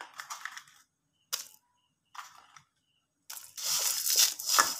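A few short, light rustles, then from about three seconds in a hand stirring dry whole spices (coriander and cumin seeds with dried red chillies) in a bare metal kadai: a dense, gritty rustle of seeds scraping and sliding on the metal.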